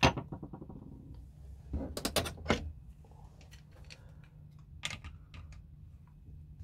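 Light clicks and knocks of hand tools against the hard plastic body of an airsoft gun during disassembly: a sharp clack with a brief rattle at the start, a quick run of three or four clicks about two seconds in, and a single click near five seconds.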